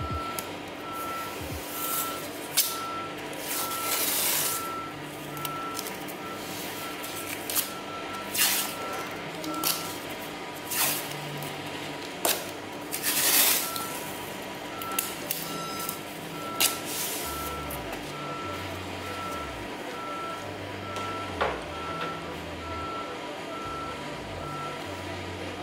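Masking tape being pulled off the roll in several short rips and pressed onto a car's plastic bumper. Behind it a vehicle's reversing alarm beeps steadily, about twice a second, pausing for a few seconds midway.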